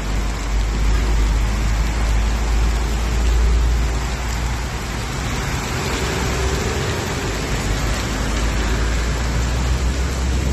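Heavy rain and hail falling in a steady downpour, over a constant low rumble.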